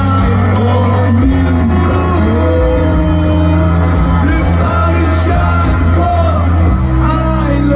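Loud live band music over a PA, with singing and heavy sustained bass notes.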